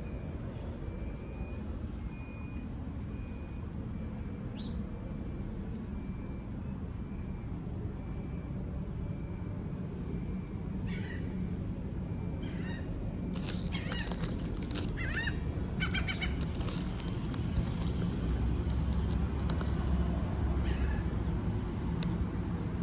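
Gulls calling: short, harsh cries that begin about halfway through and come thicker and louder toward the end, over a steady low rumble.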